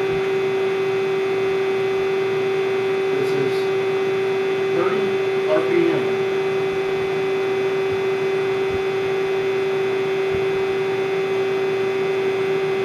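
2004 Ganesh GT 1850 CNC lathe running under power, giving a steady, even hum.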